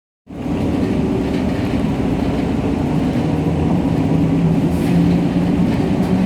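City bus running: a steady engine rumble and cabin noise with a low, even hum, starting abruptly just after the beginning.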